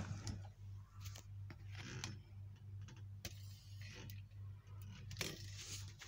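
Quiet scattered light clicks and rustles over a faint low hum, with no vacuum motor running.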